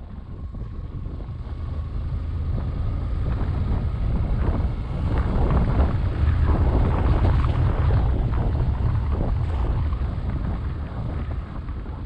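Wind buffeting the microphone on a moving Yamaha 150 cc motorcycle, a heavy gusty rumble, with the engine running under it. The sound swells up over the first couple of seconds.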